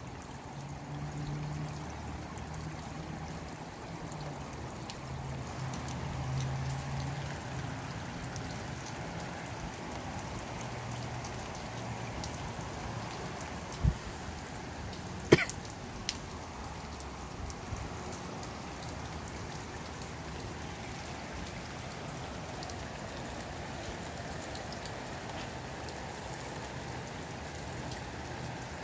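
Steady rain falling, with three sharp clicks around the middle; the second click is the loudest.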